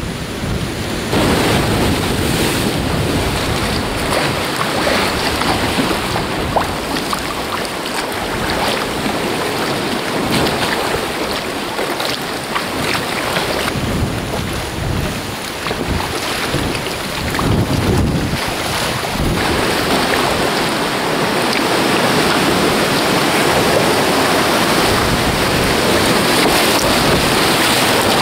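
Sea water sloshing and splashing around a sea kayak's hull and against rock walls, with wind buffeting the microphone. The rush of water grows louder and steadier in the last third.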